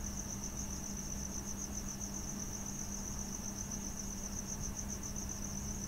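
A continuous high-pitched trill of rapid, even pulses, over a low steady hum.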